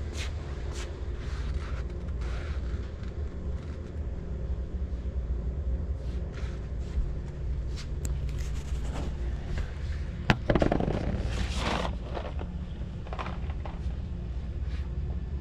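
Store room tone: a steady low hum with scattered light clicks and rustles of handling. A sharp knock about ten seconds in is followed by a second or so of rustling.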